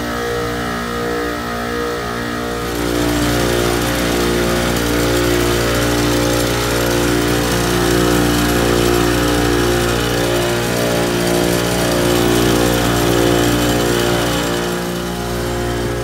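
Supermarket refrigeration compressor rack running: a steady machine hum with several slowly pulsing tones. About two and a half seconds in, a rushing hiss grows louder and stays.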